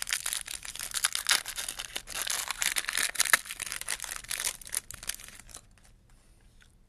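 Foil wrapper of a baseball card pack being torn open and crinkled by hand: a dense crackling rustle that stops about five and a half seconds in.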